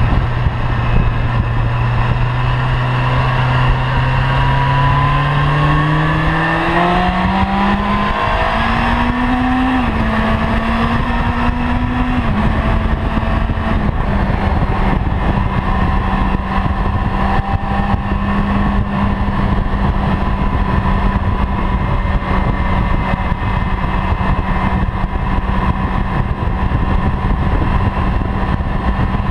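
Honda CB-1's inline-four engine running under way, with loud wind rush on the microphone. The engine note holds low and steady, climbs smoothly as the bike accelerates, dips briefly twice, then settles into a steady higher note at cruising speed.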